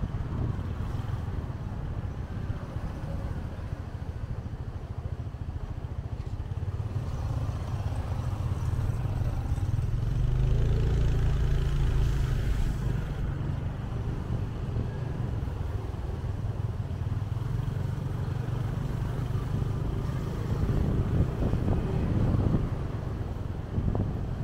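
Motorcycle engine running during a ride in city traffic, with steady road noise; it grows louder for a couple of seconds near the middle.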